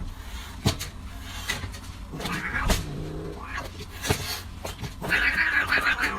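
Domestic cat meowing a few times, with scattered sharp knocks, then a louder, rougher call near the end.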